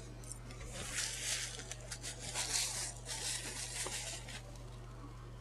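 Close-miked chewing of a Subway sandwich stuffed with chicken, bacon, lettuce and vegetables: four short spells of crisp, moist mouth noise, each about half a second, with small clicks between them.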